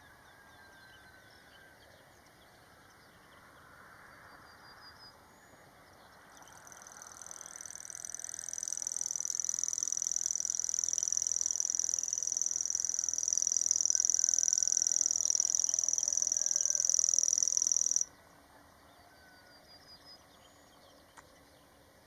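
Male house cricket stridulating: a high, shrill, finely pulsed song that swells in about six seconds in, holds steady, and stops abruptly near the end. Faint bird calls are in the background.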